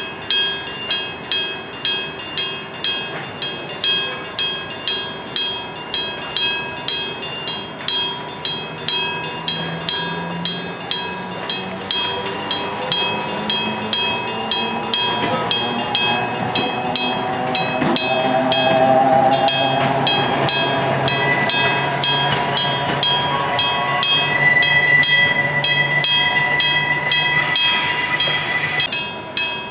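Electric-bell level crossing (電鐘式踏切) ringing its bell about twice a second. From about a third of the way in, a locomotive-hauled freight train passes with a low hum and a whine rising in pitch, and the sound swells over the bell; a high hiss cuts off suddenly near the end.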